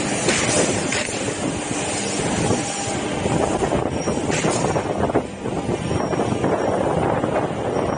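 Woodworking machinery running in a wooden-door production line: a steady, dense mechanical noise with irregular clatter.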